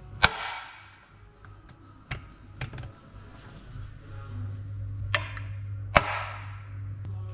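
Gloved hands handling a metal automatic-transmission oil pan on a workbench: light clicks and taps, with two sharp metallic clanks that ring on briefly, one right at the start and one about six seconds in.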